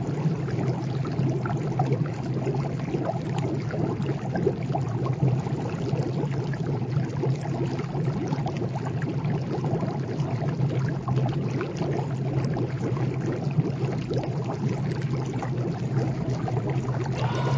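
Continuous splashing and trickling water, a steady low rushing with many small crackling splashes throughout.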